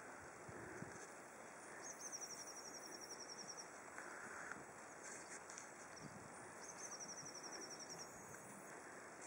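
Quiet outdoor ambience in which a small songbird sings a high, fast trill twice, each lasting a second or two.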